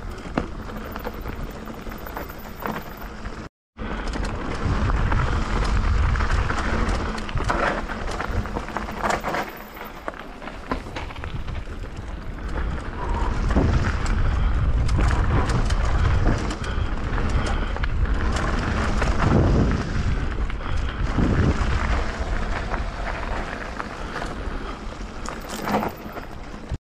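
Wind buffeting an action camera's microphone as a mountain bike runs down a gravel flow trail, with tyres crunching and the bike rattling over loose stones. The sound cuts out for a moment about three and a half seconds in.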